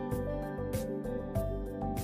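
Background music: a soft instrumental track with sustained melodic notes over a steady beat.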